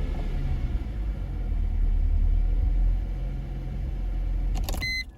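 2000 Mercedes-Benz CLK320's V6 engine idling with a steady low rumble, then shut off near the end, when a short electronic beep sounds.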